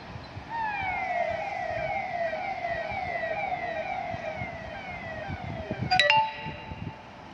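Police siren sounding a fast repeating falling wail, just under two sweeps a second, that starts about half a second in and fades after about five seconds. Near the end a sudden click is followed by a steady tone about a second long, the loudest moment, with a low rumble underneath throughout.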